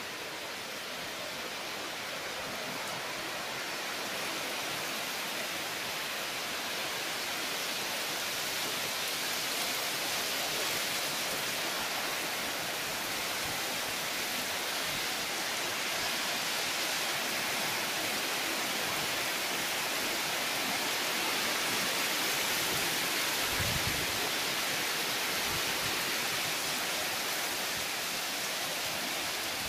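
Heavy monsoon rain pouring down on trees and garden foliage, a steady hiss that grows louder over the first several seconds and then holds.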